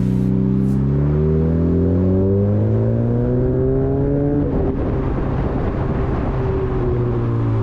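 A Honda Civic's 2.0-litre four-cylinder engine accelerating, its pitch rising steadily for about four and a half seconds, then dropping at a shift and holding roughly steady, over tyre and wind noise heard from outside the car by the wheel.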